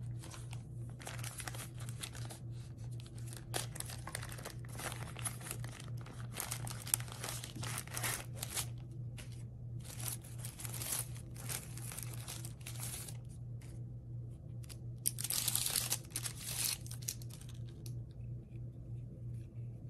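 Thin frosted wrapping sleeve crinkling and rustling as hands pull a pair of sunglasses out of it, in many short bursts, the heaviest near the end. A low steady hum sits underneath.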